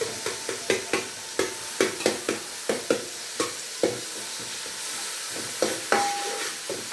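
Onions and tomatoes frying in oil and sizzling in a pan, stirred with a spoon that scrapes and knocks against the pan in quick strokes, about two to three a second, with a short pause a little past halfway.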